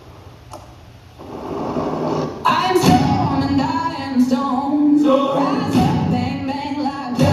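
A song with singing starts up, entering softly about a second in and coming in at full volume about two and a half seconds in.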